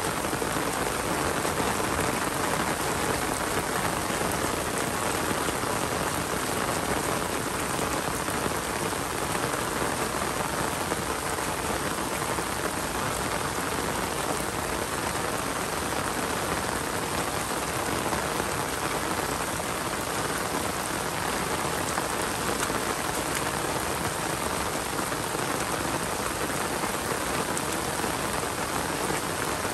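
Steady rain falling and pattering on surfaces, a dense, even hiss of countless drops that holds at one level throughout.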